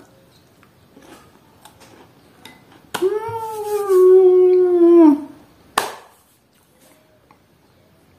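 A woman's long, pleased closed-mouth "mmm" of delight, held steady for about two seconds, as she chews a cookie with guava jam; faint chewing sounds come before it and a single sharp click follows.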